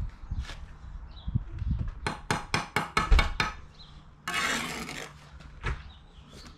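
Steel brick trowel tapping a freshly laid brick down into its mortar bed: a quick run of about eight sharp taps, followed a second later by a short scrape as the trowel works the brick's edge, and a few lone knocks.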